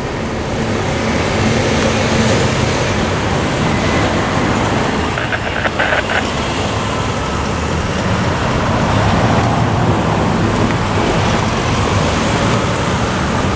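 Road traffic: a steady stream of cars and SUVs driving across a railroad crossing, with a few short higher tones about five seconds in.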